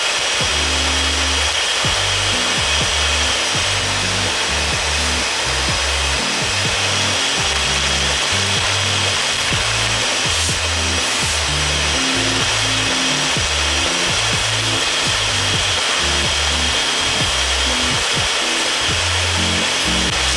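Background music with a bass line stepping between low notes, over a steady hiss.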